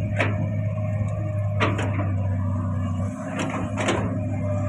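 Komatsu PC200 long-reach excavator's diesel engine running with a steady low drone while the boom and arm lift. Short sharp clanks come through about five times, twice in quick pairs.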